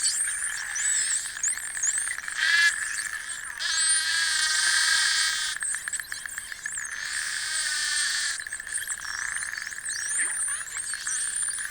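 Atlantic spotted dolphins underwater, heard through a hydrophone: many high, quick up-and-down whistles, with clicks, and three longer buzzy squawking pulse calls about 2.5, 4 and 7 seconds in.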